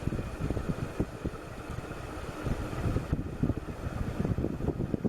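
1989 SMC Laguna 90 cm ceiling fan running on high speed: the air thrown by its blades buffets the microphone in an uneven low rumble, over a faint steady motor hum.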